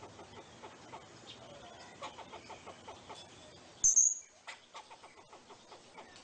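Squirrel calling: a run of short, rapid chucks, broken about four seconds in by one loud, sharp, high squeak.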